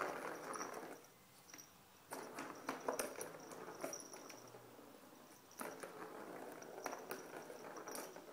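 Plastic ball rolling around the circular track of a cat's track-ball toy in three runs of a second or two, with light clicks and taps as a cat's paw bats it along.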